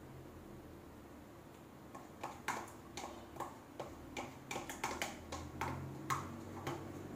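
A utensil clicking and clinking irregularly against a container while slime ingredients are being mixed, starting about two seconds in.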